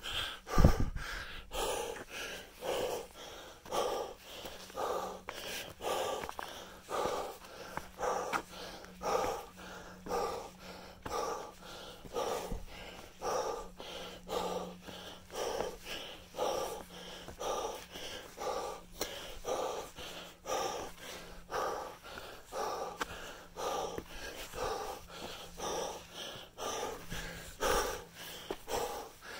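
A person breathing hard and rhythmically, about three breath sounds every two seconds, from the exertion of climbing a steep uphill trail. A loud thump comes about a second in.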